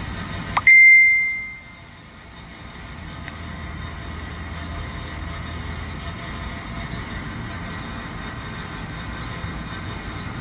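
A single high ring, struck sharply about half a second in and fading out over about a second, over a steady low rumble with a few faint scattered ticks.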